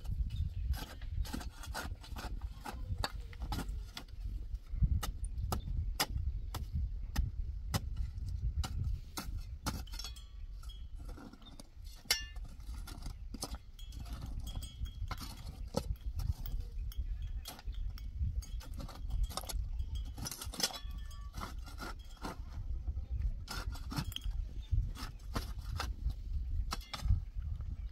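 A short-handled metal hand tool chipping and scraping at stones and packed dirt: irregular sharp taps and knocks, several a second, with a few brief metallic clinks.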